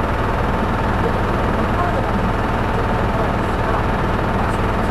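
Hino Poncho small bus heard from inside the cabin while driving between stops: a steady diesel engine drone and road noise, with a faint steady high tone running through it.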